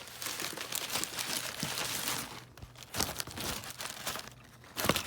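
Packaging crinkling and rustling as items are handled and unwrapped, busiest in the first two seconds, then quieter with a few sharp clicks.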